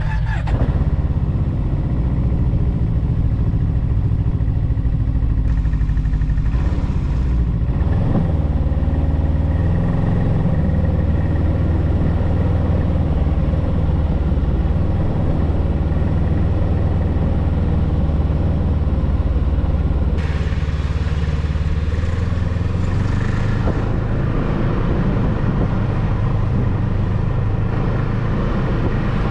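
A vehicle engine running steadily at a near-constant speed, its pitch shifting slightly a few times.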